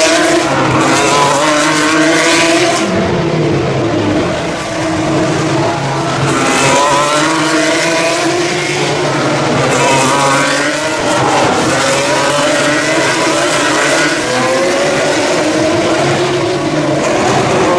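Formula 2 / Formula 3 single-seater race cars with V6 engines running at high revs. Several engines overlap, their pitch rising on acceleration and dropping through the gears under braking, with a falling sweep about three seconds in.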